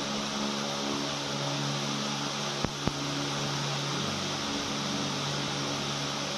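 Electric fan running: a steady motor hum with an even rush of air, with two quick clicks a little under halfway through.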